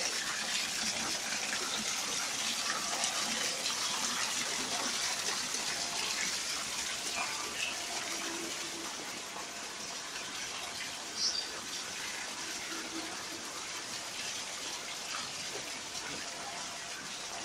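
A steady rush like running water, easing off slightly, with a short high chirp about eleven seconds in.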